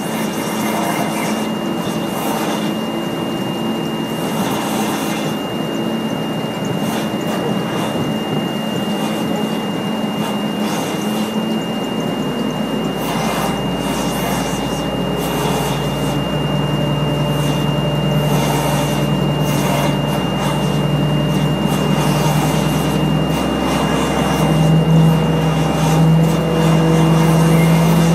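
Pushback tug running under load while pushing an airliner back by its nose gear, with a steady high-pitched whine over it. A deeper drone comes in about halfway and grows louder toward the end.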